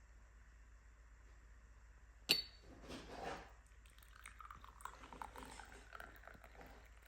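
A single light clink with a short ring, like glass or crockery being touched or set down, followed by faint soft rustling and small scrapes.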